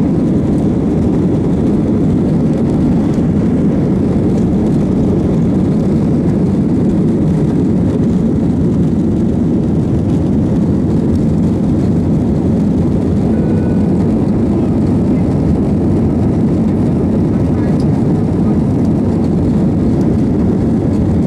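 Jet airliner cabin noise during the take-off run and climb-out: the engines at take-off thrust and the rush of air over the fuselage, a steady, loud, low noise.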